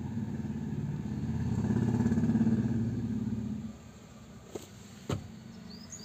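VW Vento's 1.6 TDI common-rail diesel engine (CLNA) running, growing louder for a moment, then stopping abruptly a little over halfway through. Two faint clicks follow.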